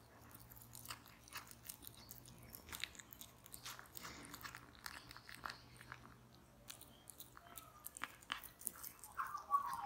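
Tabby cat chewing and biting slices of turkey off a plate, close to the microphone: irregular chewing clicks. A brief, louder, higher-pitched sound comes about nine seconds in.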